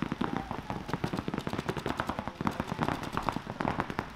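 Paintball markers firing in a rapid, uneven stream of shots, many a second.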